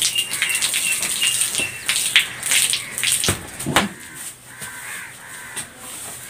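Close rustling, scraping and knocking as palmyra fruit is handled and peeled over a bowl of water, dense in the first four seconds. Crows caw in the background, with a run of short high bird notes in the first couple of seconds.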